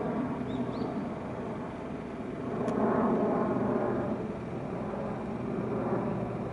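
Dash 8 Q400 twin-turboprop airliner flying low on approach with its landing gear down: a steady propeller drone that swells about halfway through.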